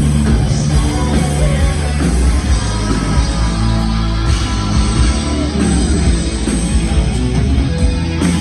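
Live rock band playing loudly, with electric guitar, bass and drums.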